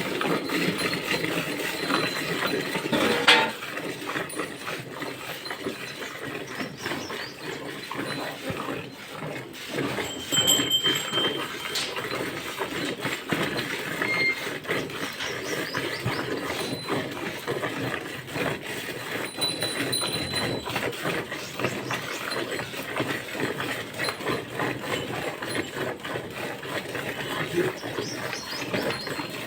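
A cow being milked: a dense, ongoing run of short rhythmic sounds, with a sharp knock about three seconds in.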